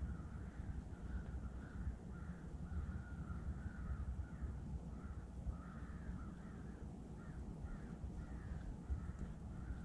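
Crows cawing over and over, their calls overlapping, above a low, steady rumble.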